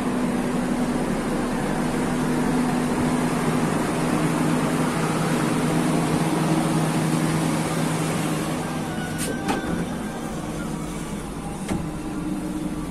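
Passenger train running: a steady rumble with a low hum whose pitch shifts slightly, easing a little toward the end, and a few sharp clicks about nine and twelve seconds in.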